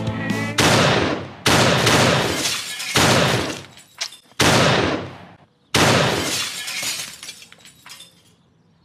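Music cuts off about half a second in, followed by five loud crashes with a shattering quality, roughly a second or so apart, each dying away over about a second.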